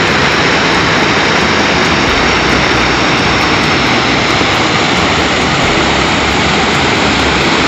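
Water pouring over a low weir, a loud, steady rush.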